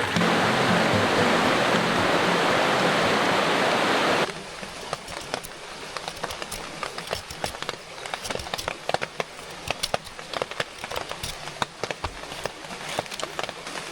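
Loud steady rushing of water, like a creek, for about four seconds, cutting off abruptly. After it comes quieter rainfall, with many separate drops ticking sharply on a hard surface.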